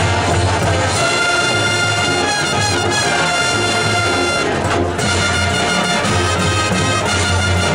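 Marching band playing live on the field: brass holding full chords over percussion, with a brief cutoff just before five seconds in before the band comes back in.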